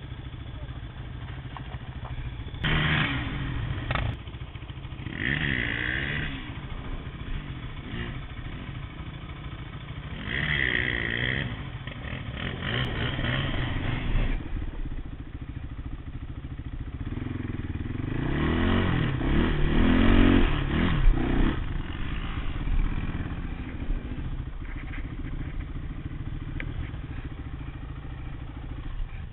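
Quad bike (ATV) engines running and revving in repeated bursts, the pitch rising and falling with the throttle over a steady engine underneath. The loudest and longest revving comes about two-thirds of the way through.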